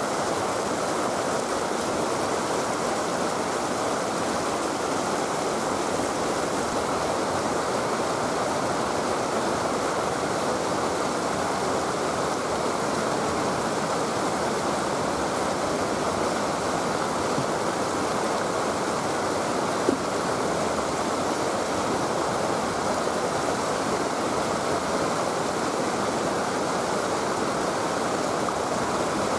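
Steady rush of flowing river water, with one faint click about twenty seconds in.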